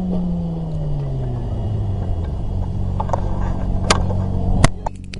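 A vehicle engine whose pitch falls over the first couple of seconds and then settles into a steady idle. A few sharp knocks land in the second half.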